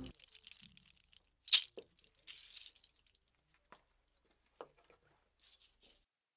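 Guitar music cutting off at the start, then faint scattered clicks and short rustling noises, with one sharper click about a second and a half in.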